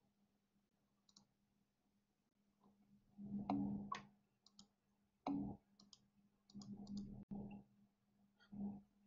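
Faint clicks and soft thumps of handling at a computer, in four short clusters over the last six seconds, over a low steady hum.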